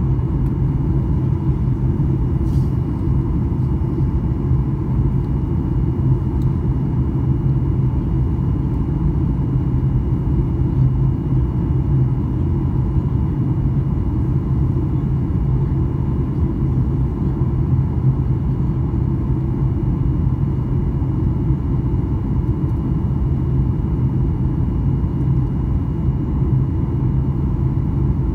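Steady low rumble of a Boeing 737-800's cabin in flight: its CFM56 engines and the airflow over the fuselage, heard from a window seat, with a faint steady high whine above it.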